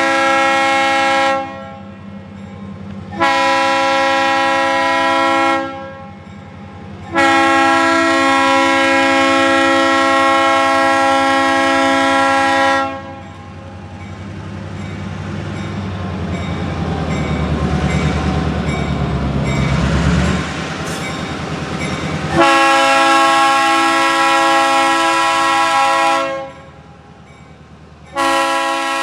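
Conrail freight locomotive's air horn sounding a chord in a string of blasts, one about six seconds long and the others shorter. Between blasts the diesel rumble of the passing train builds over several seconds and then drops away suddenly.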